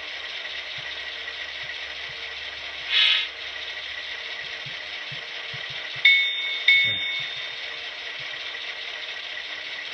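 HO scale Athearn Genesis FP7's DCC sound decoder playing a diesel idle through the model's small speaker: a steady hum with a fine hiss. A short burst of air hiss comes about three seconds in, and two short horn toots, the replacement horn sound, come near the middle.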